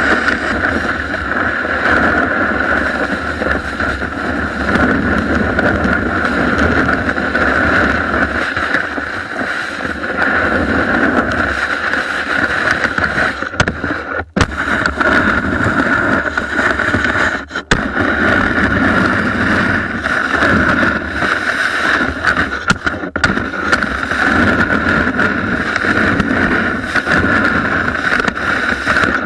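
Snowboard sliding and carving over snow, a continuous rushing scrape mixed with wind on the microphone, heard from a camera mounted on the board's nose. The sound cuts out briefly twice around the middle.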